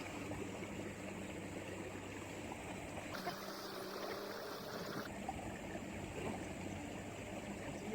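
Faint, steady riverside ambience: running water under a low steady hum. A brighter, hissier stretch lasts about two seconds, starting about three seconds in.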